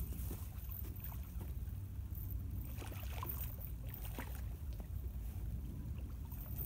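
Wind buffeting the microphone as a steady low rumble, with a few faint rustles and ticks around the middle.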